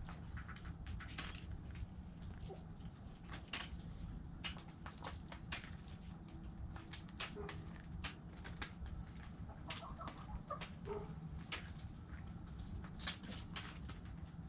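Backyard hens making a few short, soft clucks, among many sharp ticks and taps scattered irregularly, over a steady low rumble.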